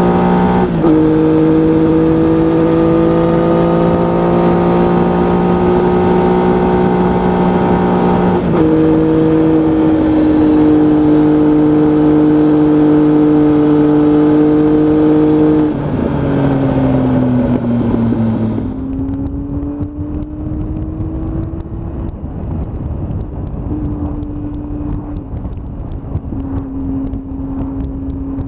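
Triumph Tiger motorcycle engine under way with wind rush. The engine note climbs steadily and drops sharply at two upshifts, about a second in and again near the middle. In the second half the engine slows, the rush of wind stops, and a quieter, lower engine note carries on.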